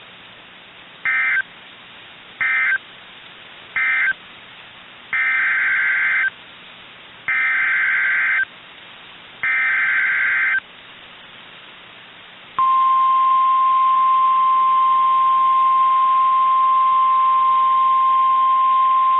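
NOAA Weather Radio Emergency Alert System tones. Three short screeching SAME data bursts mark the end of one warning. Three longer SAME header bursts then announce the next alert, and about twelve and a half seconds in the steady 1050 Hz warning alarm tone begins and holds.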